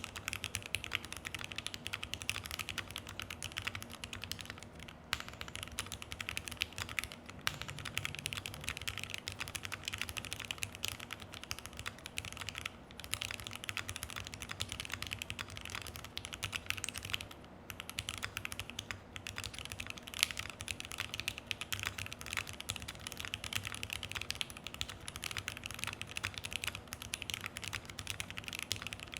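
Continuous fast typing on a Keychron Q1 mechanical keyboard fitted with Dogikon switches, an FR4 plate with tape mod and PBT keycaps: a dense stream of keystroke clacks, with a few brief pauses.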